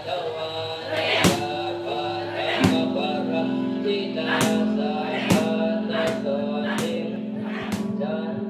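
Background music: sustained held notes over a steady low drone, punctuated by a series of sharp, irregularly spaced hits.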